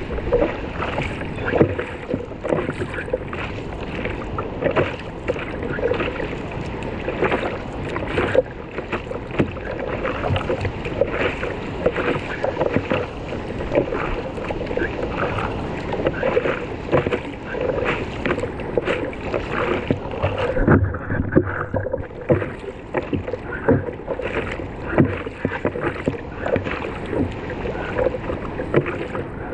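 Ocean water splashing and sloshing around a surfboard, a continuous run of irregular small splashes.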